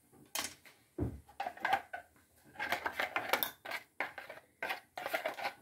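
Kitchen handling noises as food and dishes are moved about on a countertop: a dull thump about a second in, then a run of small clicks and knocks.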